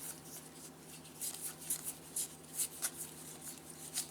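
Baseball trading cards being slid and flipped through one after another by hand: soft, irregular swishes, a few each second.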